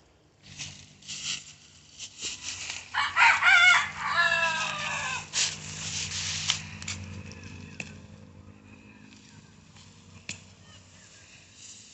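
A rooster crowing once, a long call that falls in pitch toward its end, about three seconds in.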